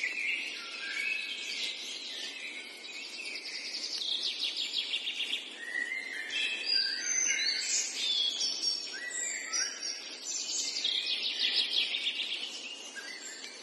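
Several birds singing and calling: rapid trills of repeated notes and short gliding whistles, over a steady background hiss.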